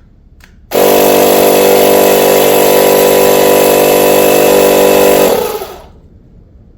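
Small electric air pump starting up and running steadily, pumping air into an outboard's lower unit to pressure-test it for leaks at 3 psi; after about four and a half seconds it cuts off and winds down.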